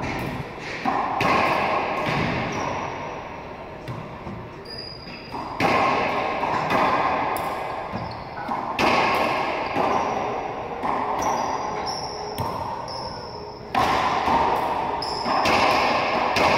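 Racquetball rally in an enclosed court: the hollow rubber ball cracks off racquets and walls every few seconds, and each hit rings on in the court's echo. Short high squeaks of sneakers on the hardwood floor come between the hits.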